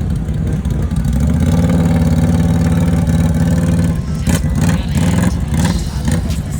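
ATV engine running steadily and growing louder from about a second in. About four seconds in it eases off among a run of knocks and clatter.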